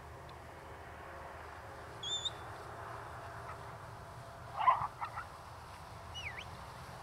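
Animal calls in a pasture: a short warbling chirp about two seconds in, one brief loud call a little past halfway, and a dipping chirp near the end.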